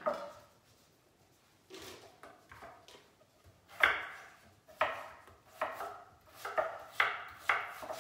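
Kitchen knives dicing raw potatoes on wooden cutting boards: separate, irregular chopping strikes that come more often in the second half, the loudest about four seconds in.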